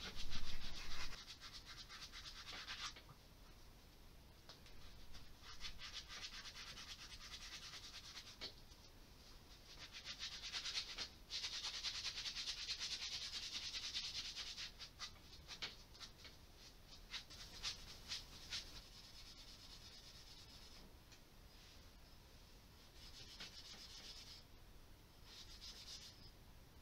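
Something being rubbed or scrubbed by hand: a dry, hissy rasping in stretches of a few seconds with pauses between, the longest and loudest in the middle. Short clicks and knocks of handling come in between, the loudest in the first second.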